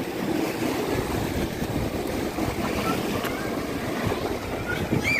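Sea waves surging and washing over rocks in a steady churning rush, with wind buffeting the microphone.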